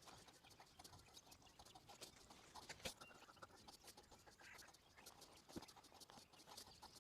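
Faint, irregular taps and drips of rain.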